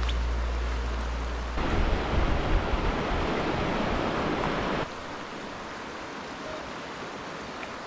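Rushing water of a small river's rapids: loud for about three seconds, then cutting suddenly to a quieter, even flow.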